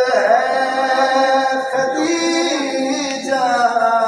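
A man's voice chanting a mourning recitation in a sung style, holding long, drawn-out notes.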